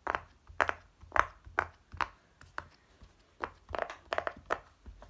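Silicone pop-it fidget toy being pressed, its bubbles popping in a string of about a dozen short, irregular pops that are not very loud.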